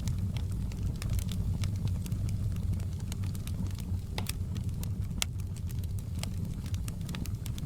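Wood fire crackling in a fireplace: irregular sharp pops and snaps, a few every second, over a steady low rumble of the burning fire.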